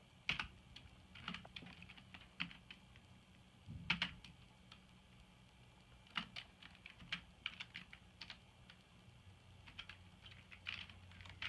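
Typing on a computer keyboard: irregular, light keystrokes with a few louder taps.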